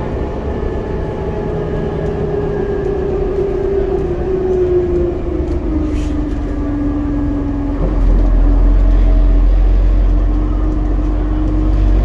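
Scania Metropolitan MD60 double-decker bus heard from the passenger saloon, its rear-mounted diesel engine and drivetrain running under way with a whine that falls slowly in pitch and then holds steady. About eight seconds in, the engine pulls harder and a deep drone grows louder.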